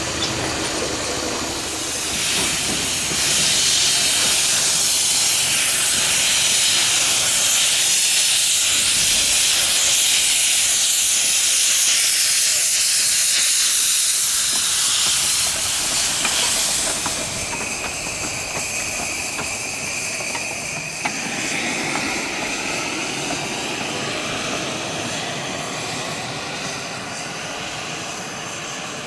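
Miniature 15-inch gauge steam locomotive venting steam: a loud, steady hiss from about two seconds in that drops to a softer hiss about seventeen seconds in.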